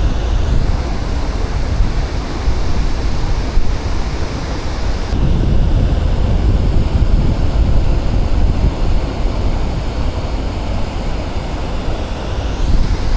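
Wind buffeting the microphone over a steady rush of water, loud and rumbling.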